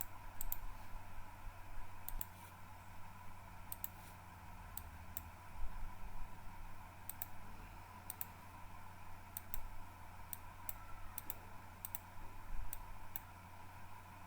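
Computer mouse clicking irregularly, many clicks in quick pairs, over a steady low electrical hum.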